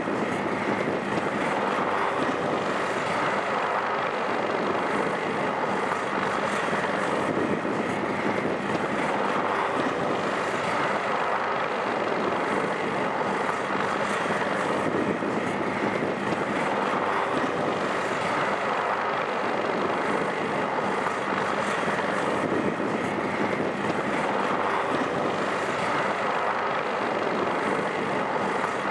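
Several MH-60S Sea Hawk helicopters running on the ground with rotors turning: a steady din of turboshaft engines and rotor blades.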